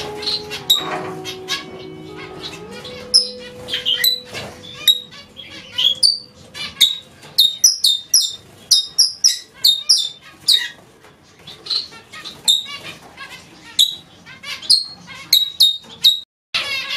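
Aviary flock of red-rumped parakeets and zebra finches chirping: many short, sharp, high calls in quick succession. Soft background music underneath fades out about three seconds in.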